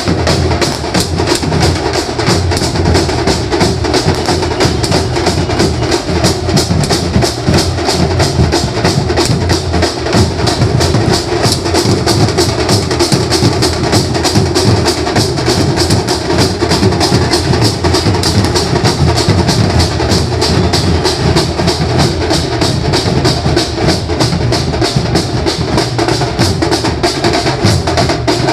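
Maharashtrian banjo party band playing loud, driving festival music, with a fast, steady drum beat throughout.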